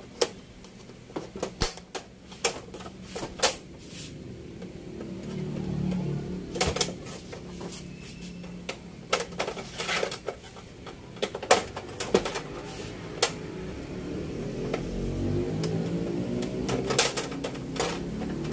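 Plastic frame of a 32-inch LED TV panel clicking and snapping as its clips are worked loose by hand: a run of irregular sharp clicks, some in quick clusters.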